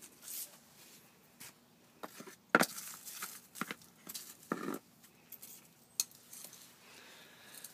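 A stick knocking and scraping against a terracotta flower pot and its dry potting soil and leaves: a run of irregular clinks and taps, the loudest a sharp knock about two and a half seconds in.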